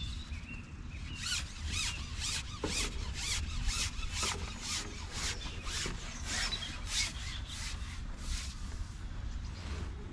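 Carbon fishing pole being shipped out hand over hand, the pole sliding and rubbing through the hands in a run of short rhythmic scraping strokes, about three a second, that stop shortly before the end.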